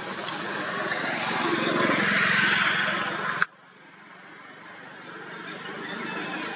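Engine noise of a passing motor vehicle, swelling to its loudest two to three seconds in and cutting off suddenly about three and a half seconds in. A quieter, steady background noise then builds again.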